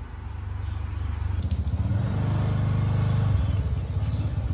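A motor vehicle's engine passing, a low hum growing louder to about three seconds in and then easing off.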